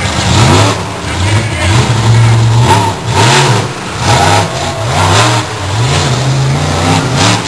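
Monster truck engine revving hard, its pitch rising and falling over and over as the truck climbs and drives across a row of junked cars. A few loud noisy bursts break in, about three seconds in and again near the end.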